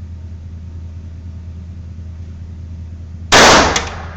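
A single handgun shot about three seconds in, very loud and sharp, with a short ringing tail and a smaller click just after.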